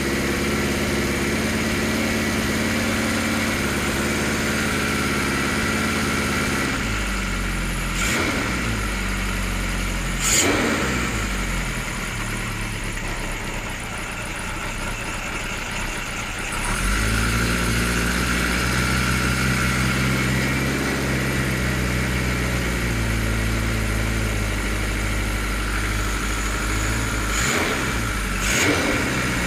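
Kawasaki Z1 900's air-cooled four-cylinder engine running on choke just after its first start following a rebuild. Its speed shifts about a quarter of the way in and again near the middle, with a few brief sharp sounds over it.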